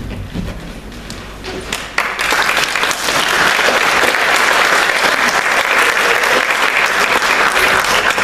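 Audience applauding, the clapping starting about two seconds in and quickly swelling to a steady, full round of applause.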